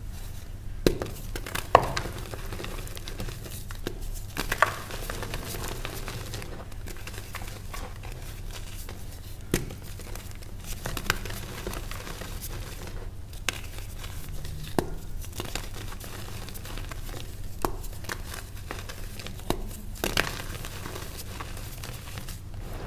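Reformed gym chalk being crushed and crumbled by hand into loose powder: soft powdery crunching, broken by irregular sharp snaps as chunks break apart.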